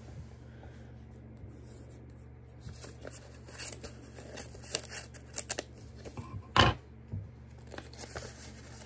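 A small paper packet being opened by hand: paper rustling and crinkling, with a few short sharp tears or snips, the loudest about two-thirds of the way through.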